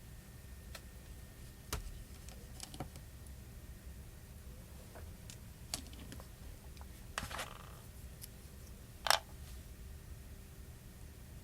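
Scattered small clicks and taps of small hand tools on phone parts and screws, with a short cluster about seven seconds in and a sharper click about nine seconds in.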